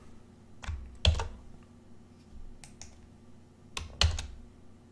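Clicks and taps on a computer keyboard and mouse at a desk: two louder clusters of keypresses and clicks with a dull knock on the desk, about a second in and about four seconds in, and a few fainter clicks between.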